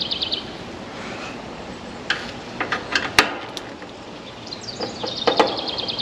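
Several sharp little metallic clicks and taps from tools and wiring being handled inside an AC condenser unit's service bay, scattered through the middle. A songbird's rapid trill of evenly repeated high notes sounds at the start and again near the end.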